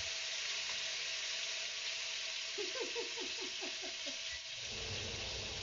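Hot oil hissing and sizzling in a smoking-hot wok with no food in it yet. About two and a half seconds in comes a quick run of short falling squeaks, and near the end a low fan rumble starts as the range hood is switched on.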